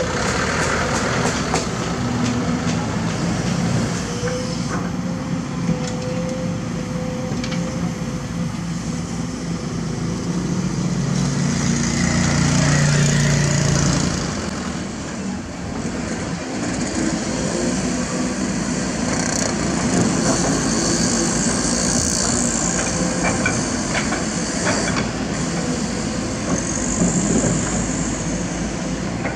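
Heavy diesel engines of a Kobelco SK200 excavator and dump trucks running steadily, with scattered clatter in the first few seconds.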